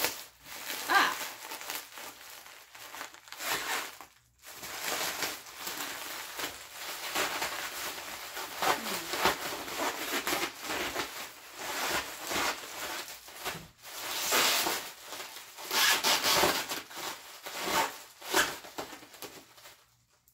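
Plastic bubble wrap crinkling and rustling in irregular bursts as it is pulled and torn open by hand to free a long lightsaber blade, with two brief pauses; it stops just before the end.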